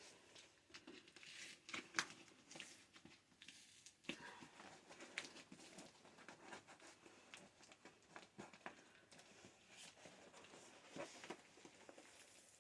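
Faint tearing and crinkling of a parcel's packaging being opened by hand, with scattered small clicks and rustles.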